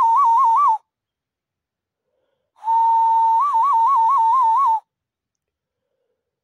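Cupped-hand whistle: a clear whistled note held steady, then warbled quickly up and down several times. One phrase ends just under a second in and another runs from about two and a half to nearly five seconds in, with silence between them.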